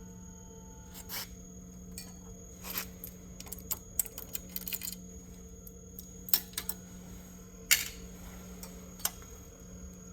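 Scattered light metallic clicks and taps from parts and tools being handled on a homemade valve spring compressor bench, over a steady low hum.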